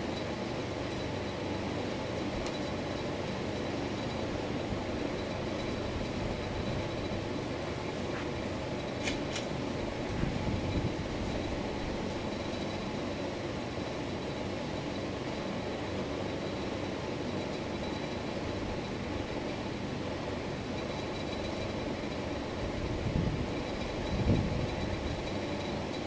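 Hugger four-blade ceiling fan running steadily, with an even whoosh of air and motor noise, and a few soft low bumps, the loudest near the end.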